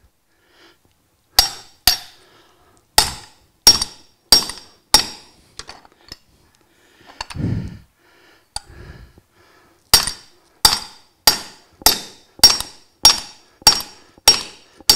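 Hammer blows on a steel socket extension, driving the old bearing and a stubborn seal out of a mower-deck spindle housing, each one a sharp metal-on-metal strike with a ringing clink. A handful of blows come, then a pause with a brief low sound in the middle. Then a steady run of strikes follows, about one every 0.6 s.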